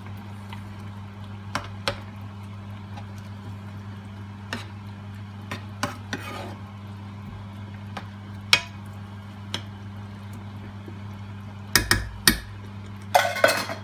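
Metal spoon stirring a coconut-milk stew in a coated frying pan, with scattered clicks and short scrapes as the spoon knocks the pan and a cluster of sharper knocks near the end. Under it is a steady low hum.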